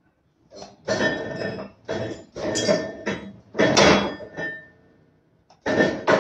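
Metal clattering and scraping in a string of irregular bursts, with a faint ringing note, as steel parts at the limit plate of a strapping-seal machine are worked by hand. The machine is stopped; after a pause, one last burst comes near the end.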